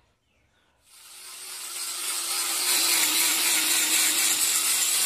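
A power tool starts about a second in and builds over a couple of seconds to a loud, steady, hissing run, as if cutting or boring into wood.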